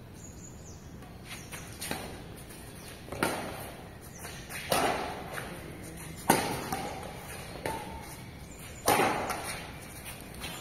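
Badminton rally: a racket strikes the shuttlecock six times, with about a second and a half between hits, each sharp smack trailing off in a short echo.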